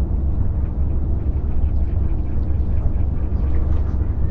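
Wind buffeting the microphone: a steady, loud low rumble with no distinct events.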